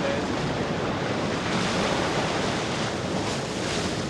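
Stormy sea and wind: a steady rush of rough water and wind noise, swelling a little in the middle.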